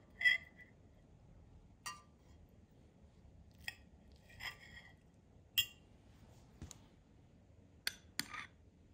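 Faint, scattered clinks and scrapes of a metal knife and fork against a ceramic plate as a crisp vegetable fritter is cut, about half a dozen separate clinks. Near the end a metal spoon clinks twice against a small glass bowl of sauce.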